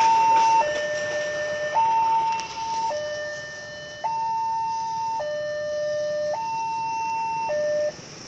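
Railway level-crossing warning alarm sounding an electronic two-tone hi-lo signal that steps between a higher and a lower note about once a second, warning that a train is coming. It cuts off near the end.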